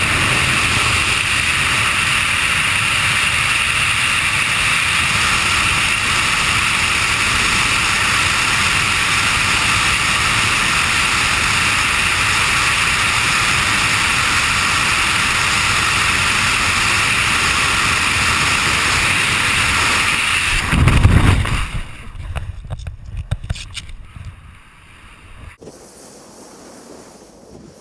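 Wind rushing hard over the microphone of a body falling through the air, a loud steady roar. About twenty-one seconds in it surges once, then drops away to a much quieter, gusty flutter.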